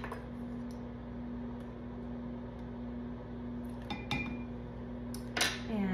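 A metal measuring spoon clinking against a glass measuring cup while lemon juice is measured and stirred in: a small click at the start, a clink about four seconds in and a louder one about five and a half seconds in. Underneath is the steady low hum of a microwave oven running.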